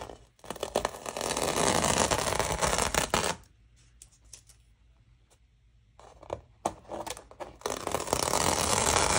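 Painter's tape being peeled off watercolour paper: two long pulls, one lasting about three seconds near the start and another beginning near the end.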